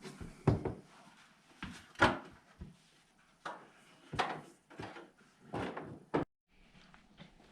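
A series of about six irregular knocks and thumps, like things being moved or bumped. The loudest comes about two seconds in, and the sound cuts out briefly just after six seconds.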